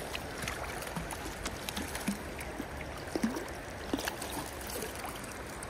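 Shallow creek water running and trickling steadily, with scattered small clicks.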